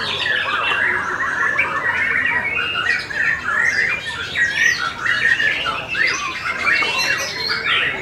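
White-rumped shama (murai batu) singing: a loud, dense, unbroken stream of varied whistles, chattering and harsh rasping notes.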